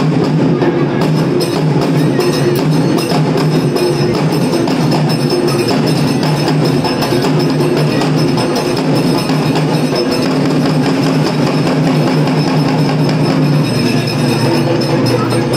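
Loud, continuous rhythmic drumming on large barrel drums.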